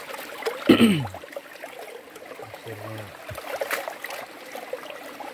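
Shallow river water running and trickling over rocks and gravel. About a second in, a short sound falling in pitch stands out as the loudest moment.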